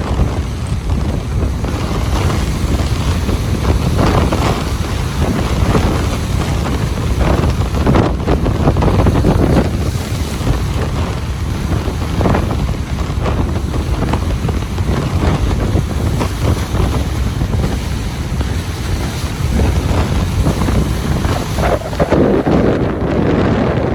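Ocean surf breaking and washing up a beach in continuous surges every few seconds, with heavy wind rumble on the microphone.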